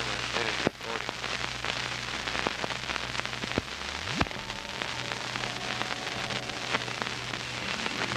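Dense crackling and hiss with scattered louder clicks over a steady low hum, the surface noise of an old home recording. A short rising chirp about four seconds in.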